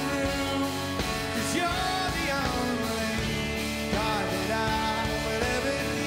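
Live rock band playing a mid-tempo song: strummed acoustic guitar over bass and drums, with a gliding lead melody on top.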